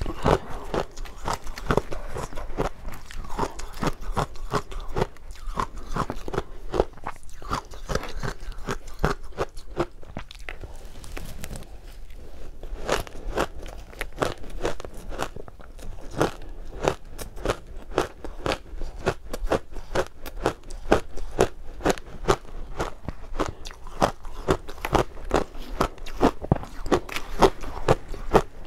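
Close-miked crunching of soft ice dusted with matcha powder, bitten and chewed in big mouthfuls: a dense run of crisp crackles, thinning out briefly around the middle.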